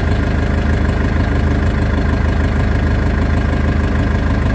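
A vehicle engine idling steadily, a low even hum with a fine regular pulse that does not rise or fall.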